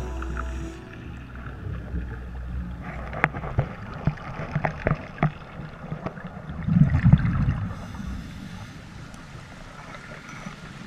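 Underwater sound of a scuba diver: scattered sharp clicks and knocks, and a rumbling burst of exhaled regulator bubbles about seven seconds in.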